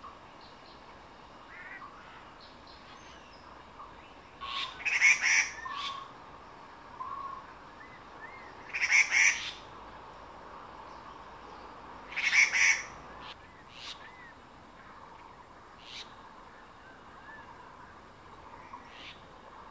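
Grey treepie calling loudly: three bursts of harsh, rasping calls about four seconds apart, with faint chirps of other birds between them.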